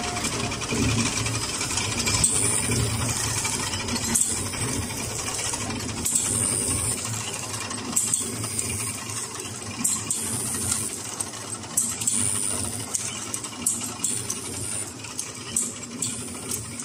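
Vertical form-fill-seal packing machines running: steady mechanical clatter, with a short high burst about every two seconds and sharp clicks that come more often in the second half.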